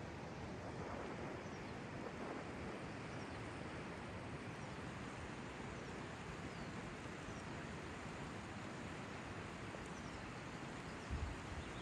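Steady rush of a river flowing past, with faint bird chirps above it. Low rumbling thumps start near the end.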